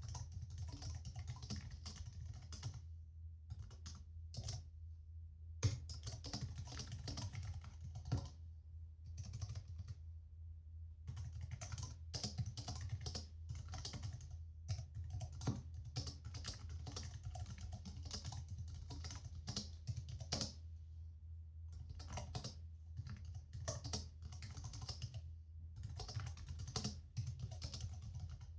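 Typing on a computer keyboard: quick runs of key clicks broken every few seconds by short pauses, over a steady low hum.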